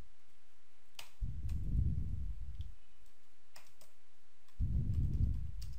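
A few sparse computer keyboard keystrokes clicking as text is typed, with two soft low rumbles between them.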